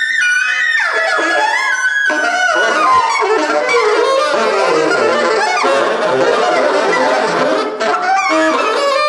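Tenor saxophone and a second saxophone playing a freely improvised noise-rock duet, full of honks, squeals and sliding pitches. Two sharp downward slides come in the first few seconds, and the lines pile up into a dense, clashing tangle through the middle.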